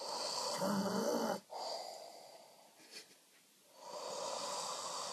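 A man snoring in his sleep: a loud snore on the in-breath that stops abruptly, a softer out-breath, then another loud breath about four seconds in.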